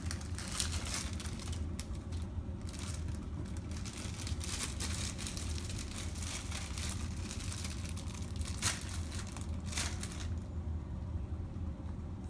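Clear plastic bag of drinking straws crinkling in irregular bursts as a toddler grips and shakes it, stopping near the end. A steady low hum runs underneath.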